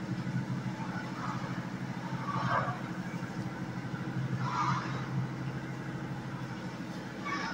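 Fujitec Zexia traction elevator car travelling upward, a steady low hum from the ride. There are two brief swells of rushing noise about two and a half and four and a half seconds in. A single chime tone begins right at the end as the car nears its stop.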